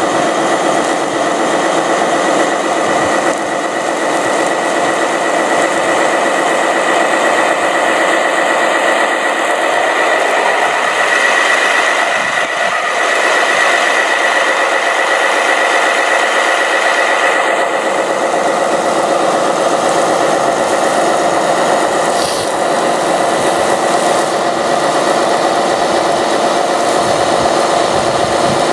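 Radio-controlled model fire trucks running: a steady, loud machine whine with a rattle, from their motors and pumps.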